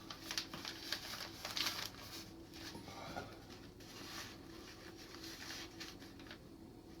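Light, irregular scraping and tapping of hand tools and fingers working wood on a harp soundboard, busiest in the first few seconds, over a faint steady hum.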